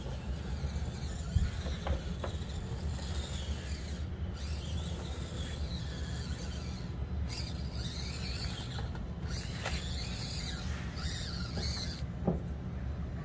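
Radio-controlled Axial Deadbolt rock crawler's electric motor and gears whining as it crawls, with its tyres and chassis scraping over the terrain. Two short sharp knocks, about a second in and near the end.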